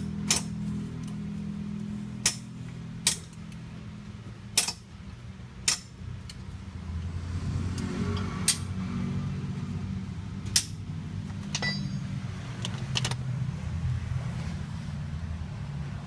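Car engine running steadily with a low hum, slightly louder from about halfway, while about ten sharp metallic clinks, spaced a second or so apart, ring out over it.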